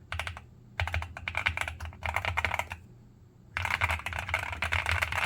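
Fast typing on a gasket-mount GMK67 mechanical keyboard with factory-lubed Ajazz Douyu Orange tactile switches and DSA-profile pudding keycaps: rapid runs of key clacks in bursts, with a pause of about a second near the middle.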